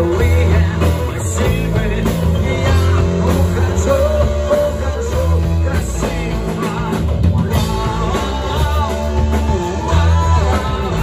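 Rock song with a singing voice over a steady bass and band.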